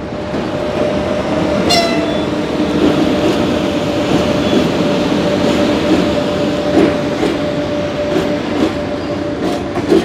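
Electric freight train, a locomotive pulling container wagons, running across a steel railway bridge: a continuous rumble with a steady whine underneath and the wheels clicking over rail joints. A brief high squeal sounds about two seconds in.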